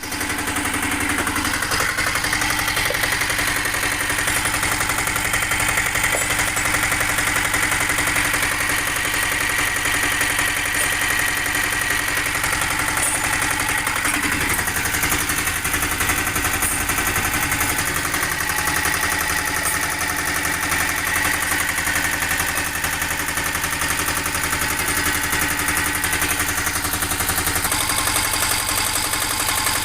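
An engine running steadily at idle, with a fast even pulsing and a high whine over it.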